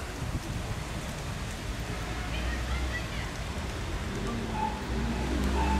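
Steady outdoor background noise with a strong low rumble, and a few short, faint bird chirps about two to three seconds in and again near the end.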